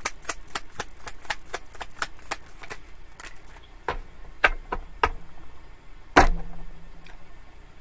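A tarot deck shuffled hand to hand: a fast run of small card clicks, about five a second, thinning to a few scattered clicks after about three seconds, with one sharper snap about six seconds in.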